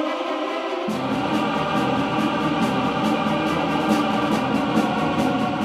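Background music: a sustained choir-like chord, joined about a second in by a bass line and a steady beat.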